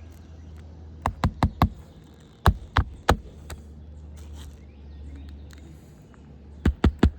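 Hammer driving roofing nails into a new asphalt shingle, in quick runs of sharp blows: four rapid strikes about a second in, three more around two and a half seconds, and another fast run near the end.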